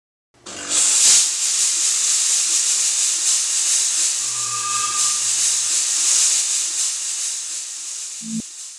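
A security fog generator's jet blasting out fog as a loud, steady hiss that starts abruptly and tapers off toward the end. Faint tones sit under it in the middle, and there is a short low thump near the end.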